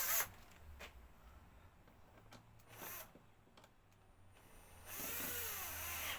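Cordless drill-driver running in short bursts, then for about a second near the end with its pitch sliding up and down, driving in a bolt that was started by hand.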